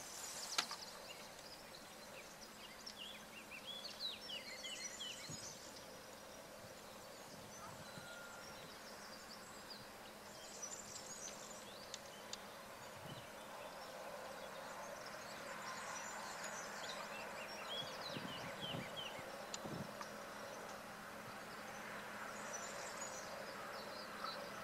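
Small birds chirping in short bursts over a faint steady background, while a diesel locomotive hauling tank wagons approaches in the distance, its engine hum growing slowly louder through the second half.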